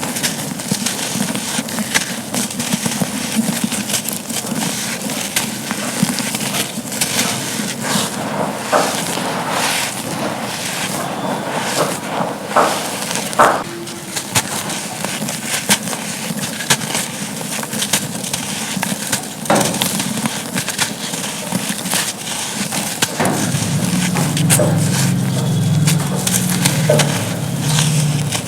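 Dry charcoal chunks being crumbled and crushed, a continuous gritty crunching and crackling with many sharp snaps. A low hum joins in near the end.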